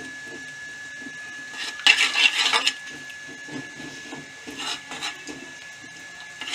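A spoon stirring and scraping along the bottom of a cooking pan of jaggery dissolving in water, loudest about two seconds in with a few lighter scrapes later. A faint steady high whine runs underneath.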